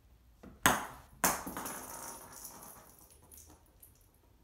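A kitten's jingle-bell toy ball being batted about: two sharp jingling knocks a little over half a second apart, each ringing away, then a few faint rattles.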